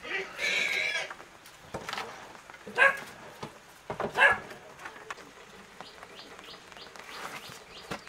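An animal's cries: a drawn-out cry in the first second, then short, sharp cries about three and about four seconds in. There are light wooden knocks as sticks of firewood are laid in a stone hearth.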